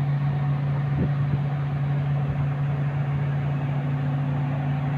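Excavator's diesel engine running steadily with an even low hum; a second, higher steady tone joins in a little over halfway through.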